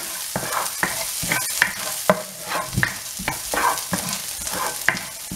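Chopped garlic sizzling in hot oil in a non-stick frying pan, with a spatula stirring and scraping across the pan in repeated short strokes over the steady hiss of the frying.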